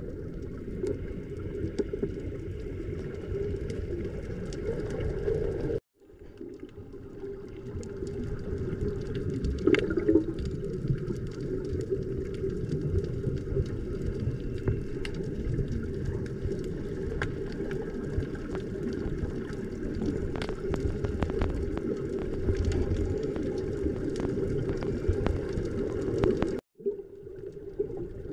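Underwater ambience picked up by a camera below the surface: a steady, muffled water rumble with a low hum and scattered faint clicks. It breaks off briefly twice, about six seconds in and near the end.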